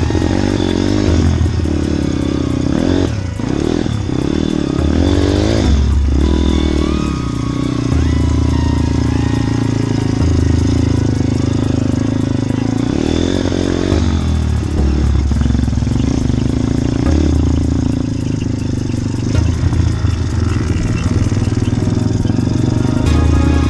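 Motorbike engine running under way, its pitch rising and falling as the throttle opens and closes.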